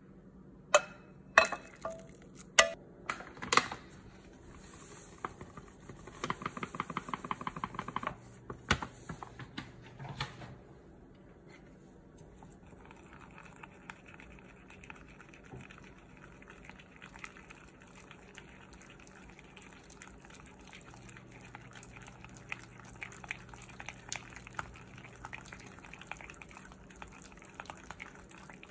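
Chopsticks stirring flour into wet batter in a glass bowl: soft wet stirring with light ticks against the glass. A few sharp knocks come in the first few seconds, and a short burst of rapid clicking follows a few seconds later.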